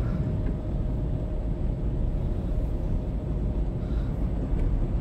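Steady low rumble of a car driving through a flooded street, heard from inside the cabin.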